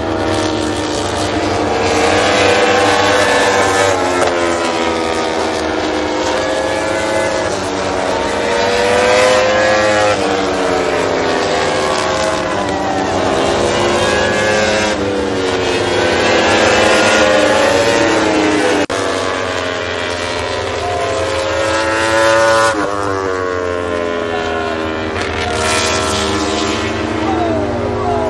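Racing motorcycles passing along the circuit one after another. The engine note rises and falls in pitch as each bike goes by, with several passes overlapping.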